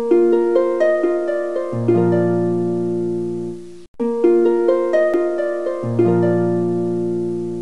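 Background music: a plucked-string arpeggio in quick notes over a low chord that enters a couple of seconds in and is held. The phrase breaks off about halfway through and plays again.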